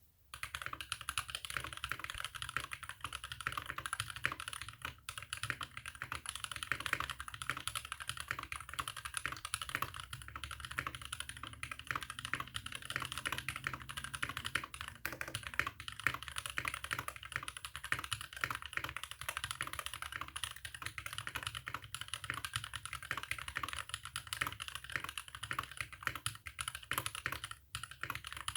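Continuous typing on a Tofu65 mechanical keyboard with Holy Panda tactile switches lubed with Tribosys 3204, a brass plate and PBT keycaps: a dense stream of keystroke clacks. The typing pauses briefly about four and a half seconds in and again near the end.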